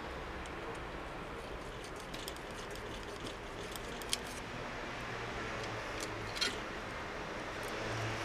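A few small, sharp metal clicks and scrapes as a thin steel punch works against the lock of an antique hammer shotgun. The sharpest click comes about four seconds in and a short scrape about six and a half seconds in, over a steady low background hum.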